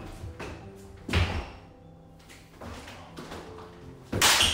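Thumps from a martial-arts drill on a wooden floor: feet stepping and stamping, and arms striking arms. There is a heavy thud about a second in, a few lighter knocks, and a louder, sharper impact near the end.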